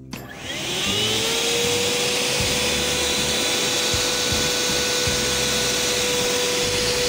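Electric air blower switched on to force air through a hose and pipe into a homemade furnace: its motor whine rises for under a second, then holds steady over a loud rush of air.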